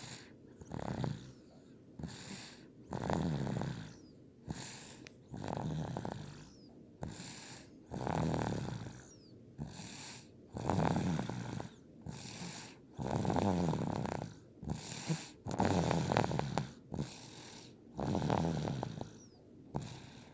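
A sleeping girl snoring in a steady rhythm: a louder, rattling snore about every two and a half seconds, with a softer breath between each one.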